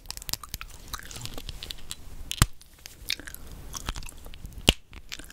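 Chewing gum close to the microphone: a run of quick clicks, with two sharper, louder clicks about two and a half seconds in and near the end.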